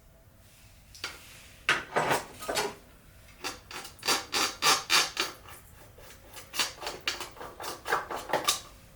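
A run of quick rubbing scrapes, about twenty strokes at an uneven pace, starting about two seconds in, from hand work during a small-engine tune-up.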